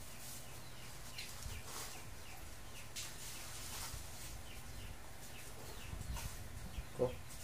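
Soft rustling of dry breadcrumbs as hands press and roll a breaded chicken cordon bleu roll in them, with small birds chirping repeatedly in the background. One brief louder sound comes near the end.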